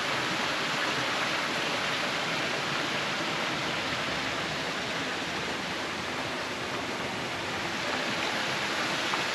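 Creek water pouring over rocks in a small waterfall into a pool: a steady, even rushing.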